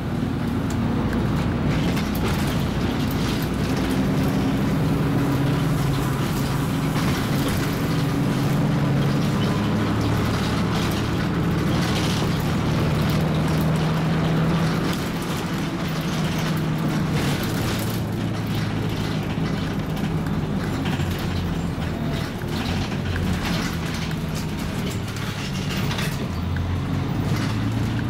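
Scania MaxCi low-floor city bus under way, heard from inside the passenger cabin: the diesel engine runs steadily over road and body noise. The engine note drops lower about halfway through.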